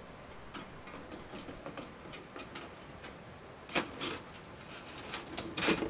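Scattered light knocks and clicks as a spark arrestor cap is worked onto the top of a metal stovepipe with a long pole, the loudest cluster near the end.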